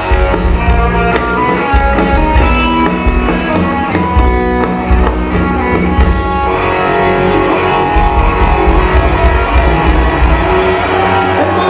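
A live rock band playing an instrumental passage: electric guitar over bass and a drum kit, loud and dense. The music changes to a new figure about six seconds in.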